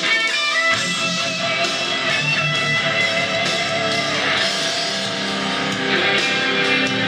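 Guitar-led music played through a pair of vintage Philips 425 three-way bass-reflex loudspeakers, running steadily as a playback demonstration.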